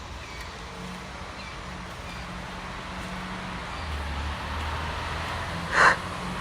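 Steady outdoor background of distant road traffic with a low rumble that swells about four seconds in, and one brief loud noise near the end.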